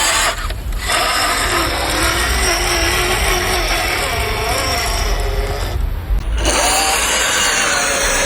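Small electric motor and gearbox of a 1:12-scale RC crawler whining under throttle, cutting out briefly twice.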